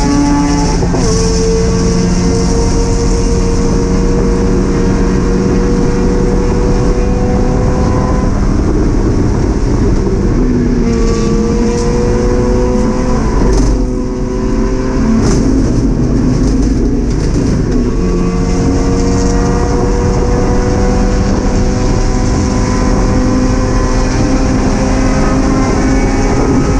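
Mazda MX-5 race car's four-cylinder engine heard from inside the cockpit, pulling hard through the gears, each gear a slowly rising note that drops at the upshift. About halfway through the engine briefly eases off with a few sharp knocks as the driver slows and shifts down, then it pulls up through the gears again. Road and wind noise run underneath.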